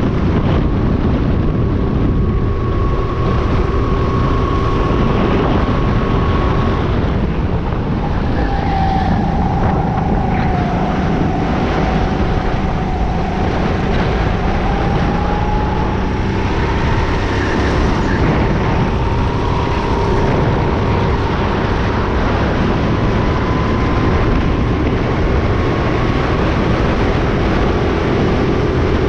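Go-kart running flat out on a circuit, heard onboard: wind rushing over the microphone with a thin whine from the kart's drive. The whine falls as the kart slows for a corner about ten seconds in and rises again as it speeds back up.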